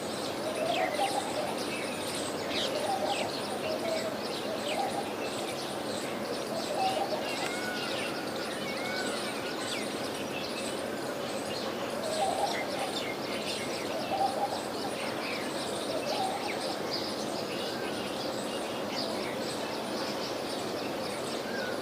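Laughing dove cooing: soft, low, bubbling notes in short phrases that repeat every few seconds, over the constant high chirping of other small birds.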